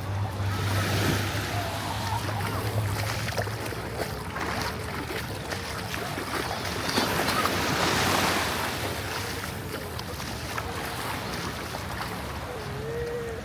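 Ocean surf washing onto the beach, swelling loudest about seven seconds in.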